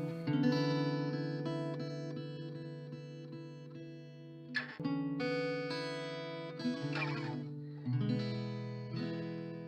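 Background music: a guitar playing held chords that change every second or two, with a few strummed strokes.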